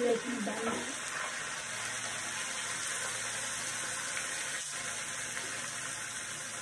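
Onion, garlic, ginger and chilli paste frying in hot oil in a kadai, with a steady sizzle. A brief voice is heard in the first second.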